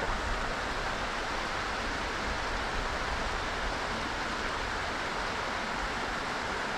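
Creek water rushing steadily over rocks, an even hiss with no breaks.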